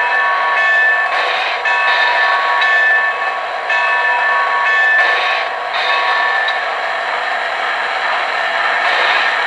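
O-gauge model train sound effects: a steady hiss with a series of short, steady high tones at several pitches that come and go, stopping about six and a half seconds in.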